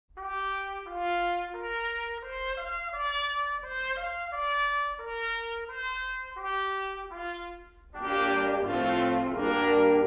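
Opening theme music: a single melody line of held notes, one after another, then about eight seconds in a fuller ensemble comes in with chords and gets louder.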